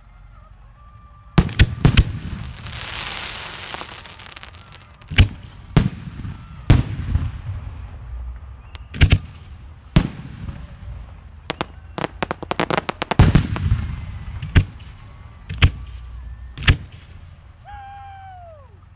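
Professional display fireworks: aerial shells bursting in a string of sharp bangs that begin about a second and a half in, some in rapid crackling clusters, with hissing between the reports. A falling whistle-like tone sounds near the end.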